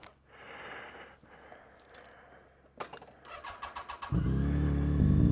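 Motorcycle engine cranked on its electric starter for about a second, catching about four seconds in and settling into a loud, steady idle.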